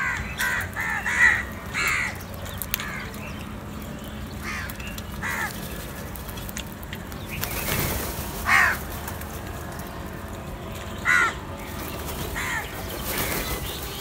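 House crows cawing: a quick run of harsh caws in the first two seconds, then single caws spaced out, the loudest a little past halfway and again about three-quarters through.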